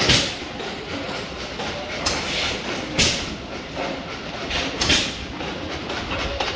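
Steam traction engine running, with a steady rattle and four sharp hisses of steam a second or two apart.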